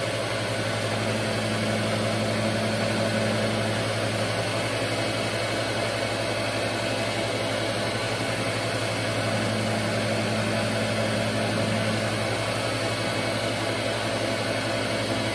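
Surface grinder running steadily, its wheel spinning on a freshly balanced SOPKO wheel hub while the table traverses back and forth during a light test grind. A second, slightly higher hum comes in about a second in and again about nine seconds in, each time for around three seconds.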